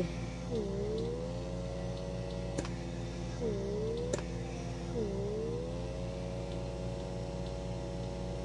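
Handheld electric pore vacuum running on its third suction setting: a steady motor whine that dips in pitch and recovers three times, with a couple of sharp clicks.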